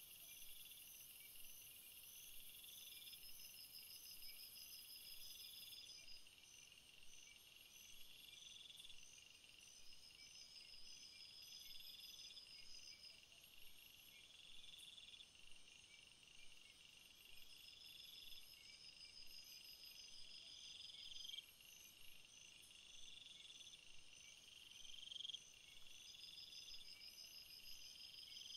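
Faint chorus of insects chirping, cricket-like: a steady high-pitched pulsing trill with a rising chirp repeating about every two and a half seconds.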